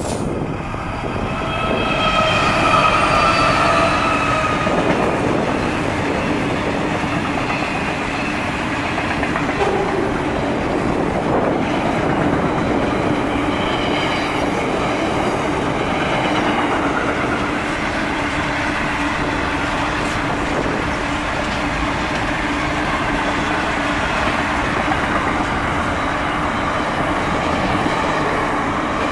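Freight train of container and steel wagons rolling past close by, with a steady rumble of wheels on rail. High ringing tones sound for the first few seconds, falling slightly in pitch, and again briefly around the middle.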